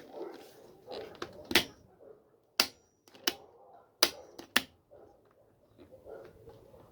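Sharp clicks and light taps as the plastic switch parts of an opened angle grinder are handled and worked: about six separate clicks over a few seconds, with faint rustling between them.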